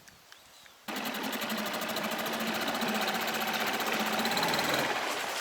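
Small outboard boat motor running steadily, cutting in abruptly about a second in and holding an even, slightly rising pitch.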